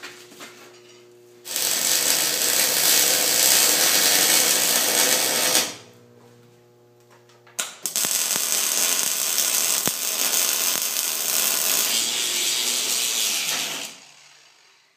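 Electric arc welding in two steady passes, one of about four seconds and then, after a short pause, one of about six seconds, while a steel bushing is welded into a loader's bucket-tilt pin mount.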